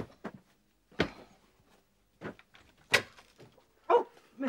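A front door being unlatched and opened: a run of short clicks and knocks, with the loudest about one and three seconds in.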